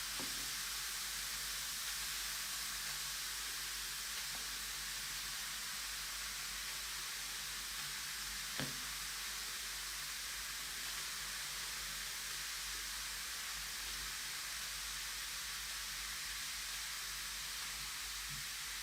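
Large bath bomb fizzing steadily as it dissolves in water, an even hiss, with one small knock about eight and a half seconds in.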